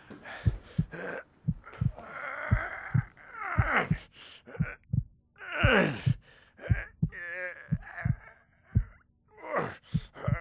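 Film soundtrack: low thumps repeating at a steady pace like a heartbeat, with a person's gasps and groans over them, some sliding down in pitch.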